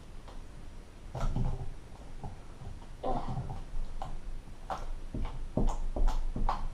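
Homemade fluffy slime being squeezed and stretched by hand, giving irregular wet clicks and pops, a few a second, growing more frequent toward the end.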